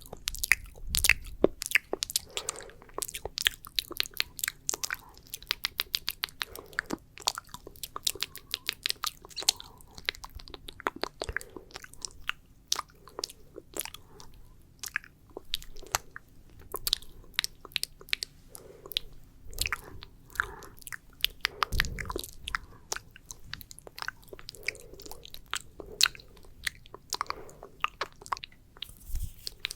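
Close-miked wet mouth sounds for ASMR spit painting: sticky saliva clicks and smacks in rapid, irregular runs, with occasional softer wet pops.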